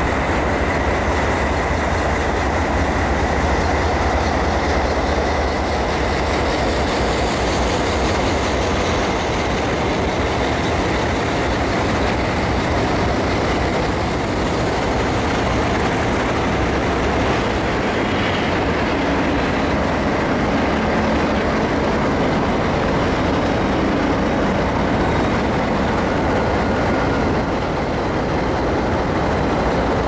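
A consist of Alco diesel locomotives passing close by, their engines running with a steady low drone over the noise of wheels on the rails. The low engine drone is heaviest in the first several seconds.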